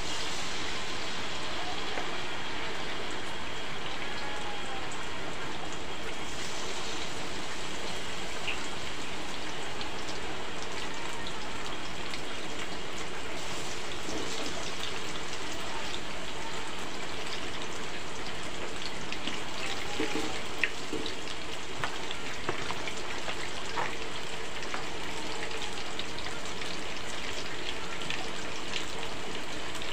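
Steady hiss of heavy rain mixed with battered banana pieces sizzling in hot oil in a wok, with scattered small pops and a couple of light knocks about two-thirds of the way through.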